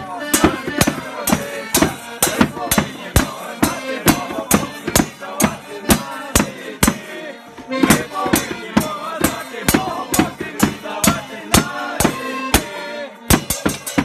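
Folk New Year song sung to a drum beating a steady, even rhythm, the strokes sharp and loud throughout.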